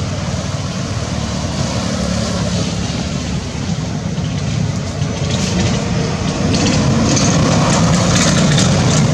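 Steady low engine rumble of a motor vehicle, growing louder over the last few seconds.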